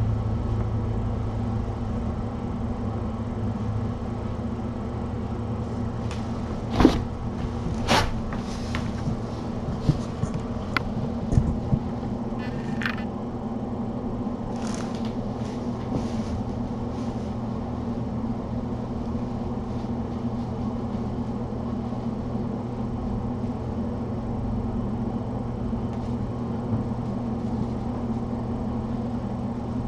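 Steady low hum of room machinery, with a scatter of light clicks, knocks and rustles from kittens playing between about 7 and 17 seconds in.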